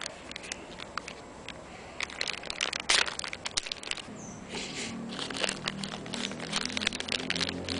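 Plastic wrapping of a small parts kit crinkling and crackling in the hands as it is opened, in irregular sharp crackles. About halfway through, the low hum of a vehicle engine comes in and grows louder.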